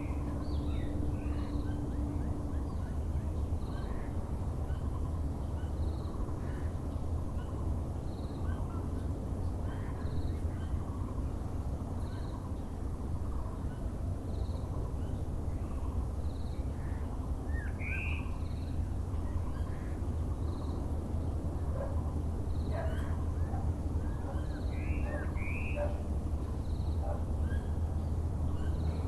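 Several birds calling over a steady low background rumble, with scattered chirps and a short high note repeating about every two seconds.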